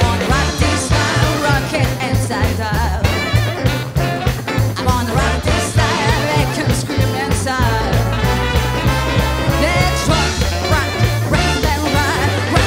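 Live big band with a woman singing lead: her voice over trumpets, trombones and saxophones, with electric guitar, a stepping upright bass line and drums keeping a steady beat.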